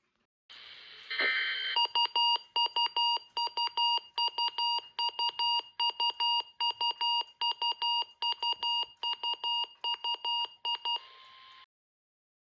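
Weather radio receiver sounding its alert alarm: a moment of hiss, then rapid high-pitched beeps in short repeating groups, about two groups a second. It ends with a brief steady tone and cuts off suddenly.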